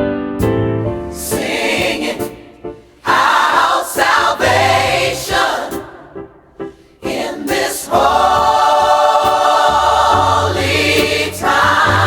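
Gospel choir singing over instrumental backing with a bass line, the music dipping briefly a few times before swelling into a fuller, sustained passage about eight seconds in.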